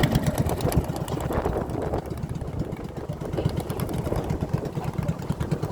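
Small boat engine running with a rapid, even chugging.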